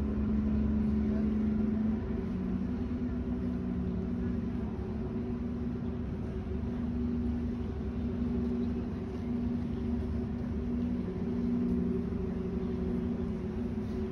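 The Christopher Stannix passenger ferry's engines running as it comes alongside the dock: a steady low rumble with a hum that dips slightly in pitch a couple of times as it manoeuvres.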